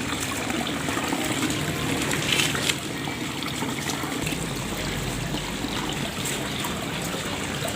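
Water trickling steadily, with a few faint clicks.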